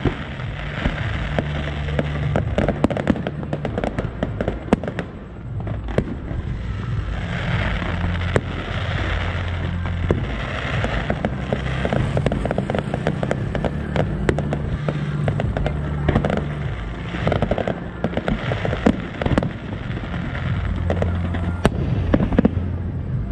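Aerial fireworks display: shells bursting with many irregular bangs and crackles, coming thick and fast over a steady low rumble.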